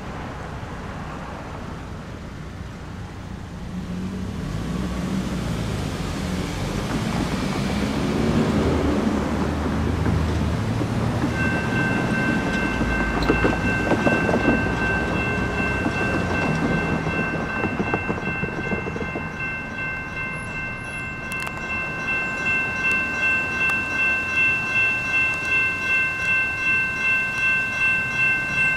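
Railroad grade-crossing warning bells start ringing about eleven seconds in and ring steadily with a regular pulse to the end, the sign that the crossing signals have activated for an approaching train. Before and under the bells, a low rumble swells and fades.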